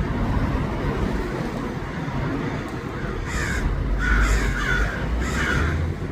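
American crows cawing, about three calls in the latter half, over a steady low rumble.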